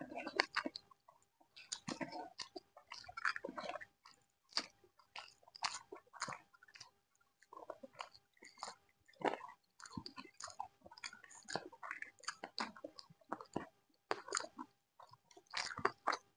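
People chewing and eating mouthfuls of chicken curry and lemon rice, a dense run of irregular short wet chewing and biting sounds.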